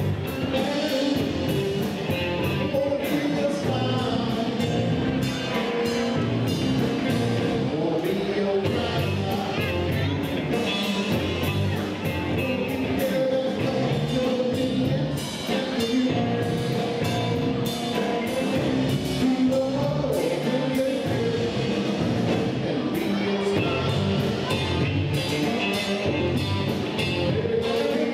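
Live rock band playing: electric guitar, bass guitar and a drum kit keeping a steady beat.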